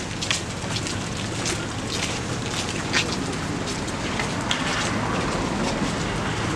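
Footsteps and shuffling of a large crowd walking together on a paved street, with scattered sharp scuffs of shoes several times a second.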